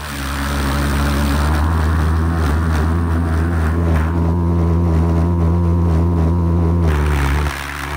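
Maddox Jets 260-pound-thrust Dragon valveless pulsejet running under power on a moving four-wheeler, a loud, steady, deep buzzing drone. It drops in level briefly near the end.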